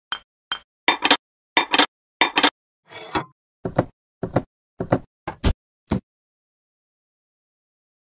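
Ceramic bowls being set into a metal wire dish rack: a quick series of about a dozen sharp knocks and clinks, some in close pairs, stopping abruptly about six seconds in.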